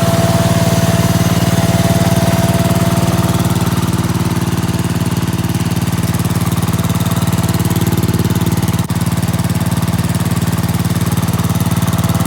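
Gravely 812 garden tractor's engine running steadily, with a momentary drop in level about nine seconds in.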